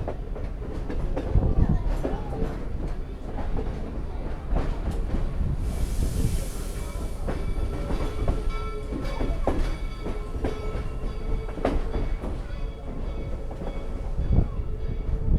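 Excursion passenger train rolling on the rails: a steady rumble with the wheels clicking over rail joints. A brief hiss comes about six seconds in, and thin high wheel squeals run through the second half.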